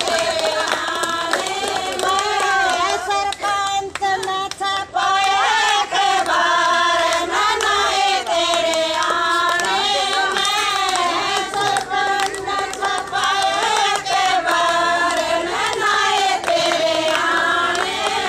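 A group of women singing a song together in unison, with long, wavering held notes and some hand clapping.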